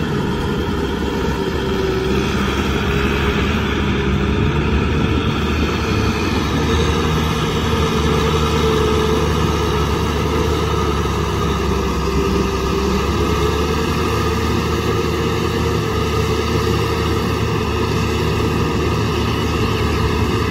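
Kubota M6040SU tractor's four-cylinder diesel engine running steadily under load as it works through a flooded, muddy paddy with a rear implement.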